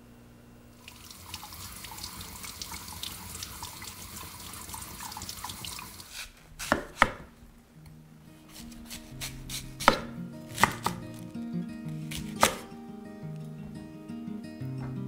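Running water hisses for about five seconds. Then a kitchen knife cuts through a peeled Korean radish and strikes the wooden cutting board in about six sharp, irregularly spaced chops, with soft background music coming in under them.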